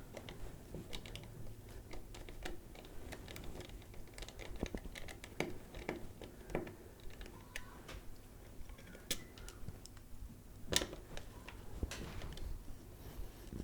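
Irregular light clicks, taps and scrapes of a small plastic power bank casing and hand tools being handled up close at a bench, with one sharper click near the end.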